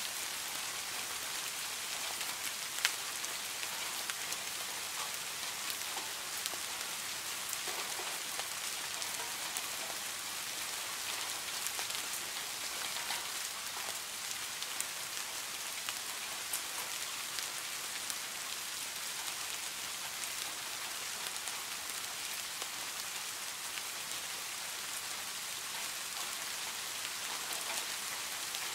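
Steady rain falling on a garden pond: an even hiss of drops hitting the water, with scattered individual drips standing out and one louder drop about three seconds in.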